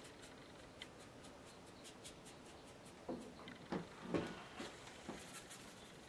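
Faint taps and scratches of a watercolour brush on paper, with a few louder knocks and rubs about three to four seconds in.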